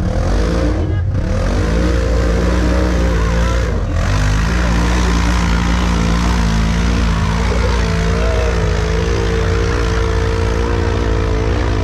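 Side-by-side UTV engine held at high revs under heavy load while climbing a steep rock face, dipping briefly twice in the first four seconds, then running steady and strained.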